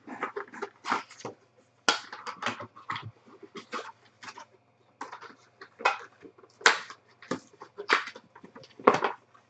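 Trading cards being handled and sorted: irregular short scrapes and snaps of card stock, about one or two a second.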